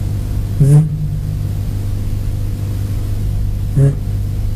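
A voice sounding the isolated German voiced consonant [z] (the voiced s) twice, each a short buzz with a faint hiss, the first about half a second in and the second, briefer, near the end, over a steady low electrical hum.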